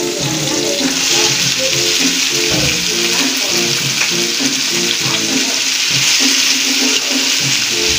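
Wet, freshly washed petchay (bok choy) sizzling as it hits hot oil in a wok and is stirred with a spatula; the sizzle grows louder about a second in and then holds steady.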